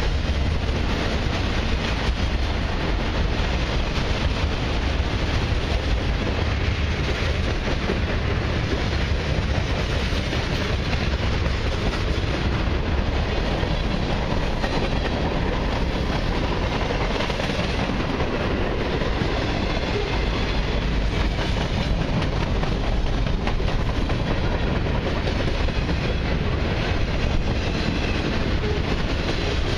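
Mixed freight train of autoracks and boxcars rolling past at speed: a steady rumble of steel wheels on rail, with faint clicks of the wheels over the rail joints.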